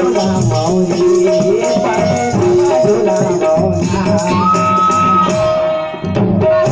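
Live devotional bhajan music: a harmonium playing a melody of held notes under singing, with tabla and a shaker rattle keeping the rhythm.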